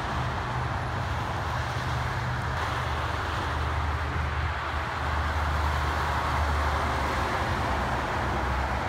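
Steady highway traffic: tyre and road noise from passing cars, under the low drone of a heavy diesel semi truck engine, which grows louder about five seconds in.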